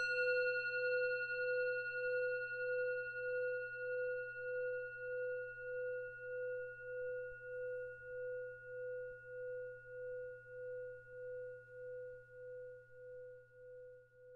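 A meditation bell bowl struck once, ringing a single clear tone with fainter higher overtones. The tone wavers in a slow pulse of about one and a half beats a second as it slowly fades.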